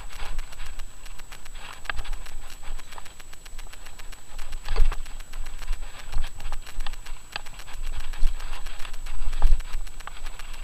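Mountain bike ridden over a gravel dirt trail, heard from a handlebar-mounted camera: tyres crunching on gravel with frequent irregular rattles and knocks from the bike over bumps, over a low rumble of wind on the microphone.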